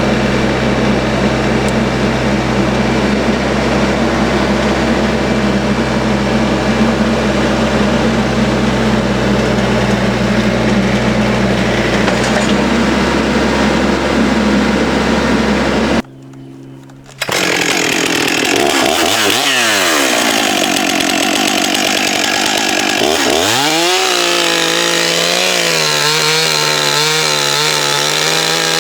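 Stihl 661 Magnum two-stroke chainsaw running at a steady high speed while cutting through a large oak log. After a brief break it runs on, its pitch dipping and recovering twice as the chain bogs in the cut and revs back up, then holding steady again.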